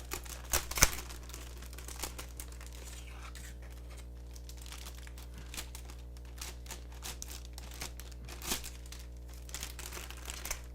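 Packaging being handled and unwrapped as a keyboard is taken out of its box: crinkling rustles and small clicks, loudest about a second in, then scattered and lighter.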